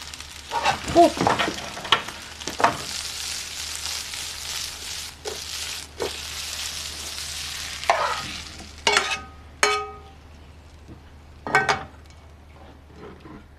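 Leafy greens sizzling in a frying pan on a gas stove as they are stirred and tossed with a metal spoon. The sizzle stops about nine seconds in, followed by a few ringing metal clanks of the pan and utensils.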